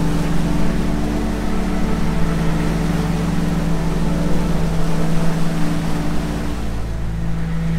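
Twin Yamaha 250 outboard motors running steadily at cruising speed, a constant low engine drone with the rushing wash of the wake behind the boat.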